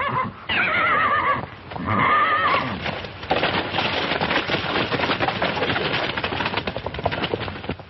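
A horse whinnies twice, each call wavering and falling in pitch. From about three seconds in come the fast, dense hoofbeats of several horses galloping.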